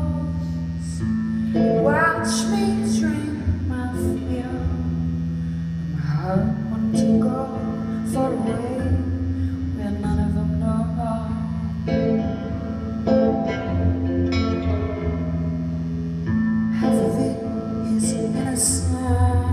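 Live solo electric guitar playing held chords that change every second or two, with a woman singing phrases over it.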